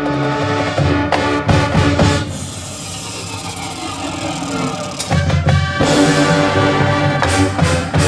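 High school marching band playing its show: sustained brass chords punctuated by percussion hits. A softer passage comes in the middle before the full band returns.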